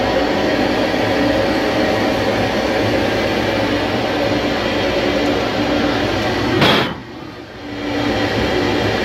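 CNC lathe standing at idle with its steady machine hum, a few even tones running through it. About six and a half seconds in comes a short, loud rush of noise, and the hum drops away for about a second before it returns.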